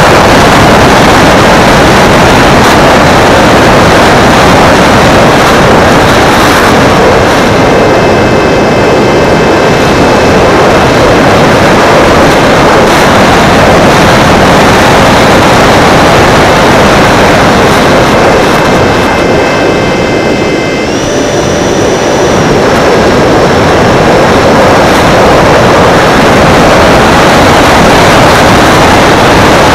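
Loud, steady wind rush over a camera riding on a radio-controlled model plane in flight, with a faint motor whine that comes and goes and steps up in pitch about two-thirds of the way through.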